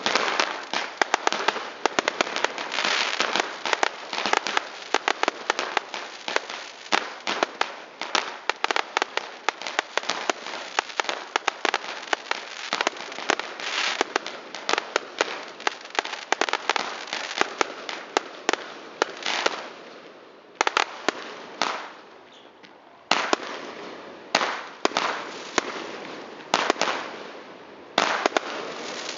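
Fireworks crackling: a dense, rapid run of sharp cracks and pops that thins out after about twenty seconds into a short lull and then scattered bursts of pops.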